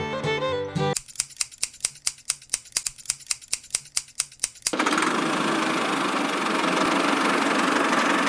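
Fiddle music ends about a second in. A small engine then cranks with about four to five even clicks a second, and at about four and a half seconds in it switches to running steadily.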